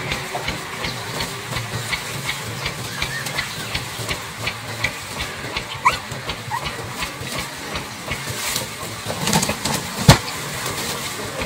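Young puppies stirring in dry grass: light crackling throughout and two brief high squeaks about six seconds in, over a steady hiss and low rumble. One sharp click sounds just after ten seconds.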